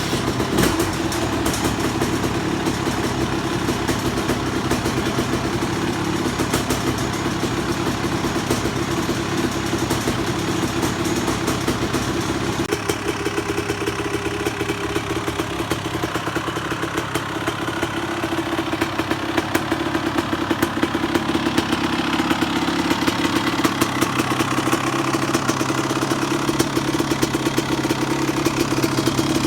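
Freshly rebuilt 1999 Honda CR250R's two-stroke single-cylinder engine idling steadily after the top-end rebuild, held off high revs for break-in. It gets a little louder in the second half.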